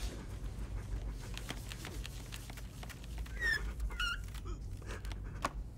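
Marker squeaking on a whiteboard in a few short high strokes about three to four seconds in, among light taps and rubs against the board, over a steady low hum.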